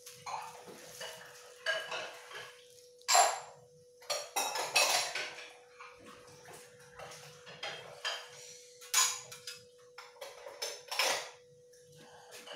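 Irregular clattering and rustling as a toddler handles books, papers and a plastic bag on a tiled floor, with several sharper knocks among them, over a faint steady hum.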